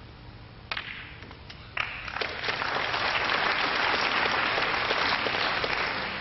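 Snooker balls clicking sharply, once under a second in and again about a second later, then audience applause that swells and eases off near the end.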